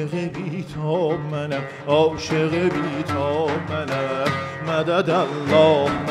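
Live Iranian music: an oud being plucked and a daf frame drum being struck in a steady rhythm, under a wavering, richly ornamented vocal line.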